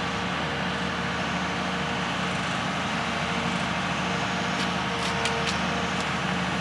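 Heavy diesel engine running steadily at idle, with a few short sharp clicks a little over four seconds in.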